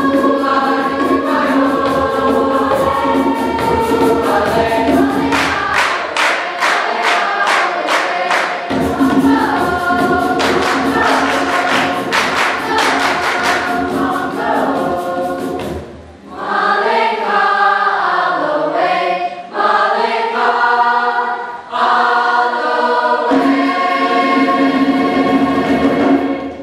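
Large mixed choir singing in full harmony. Through the middle a hand drum beats steadily, about three strokes a second; after it stops the choir carries on alone in held, moving chords.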